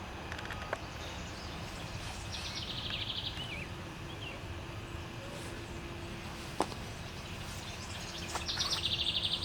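A songbird singing a short, rapid, high buzzy trill twice, about six seconds apart, over a steady low outdoor rumble, with one sharp click between the songs.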